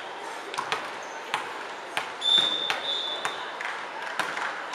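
A referee's whistle blown once, one steady blast of about a second and a half, about halfway through, signalling the serve. Around it come sharp, separate knocks of a volleyball bouncing on the sports hall floor.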